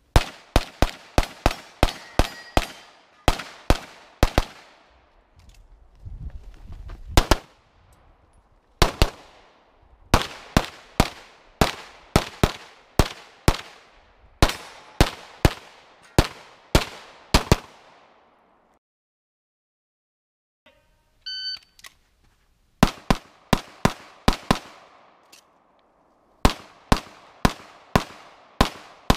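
Rapid pistol fire from a Blackdog Custom 9mm Major Open-division pistol: dozens of shots, mostly in quick pairs, in strings with short breaks between them. About two-thirds through there are two seconds of silence, then a shot-timer start beep, and the firing begins again.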